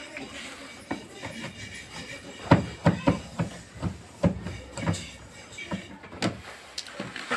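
Screwdriver working the screws out of a washing machine's plastic back panel: a string of irregular clicks and knocks, thickest between about two and five seconds in.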